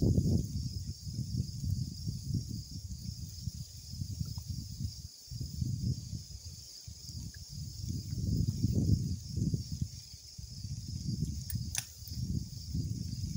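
Wind buffeting the microphone in uneven gusts, over a steady high buzz of insects. A single short click near the end.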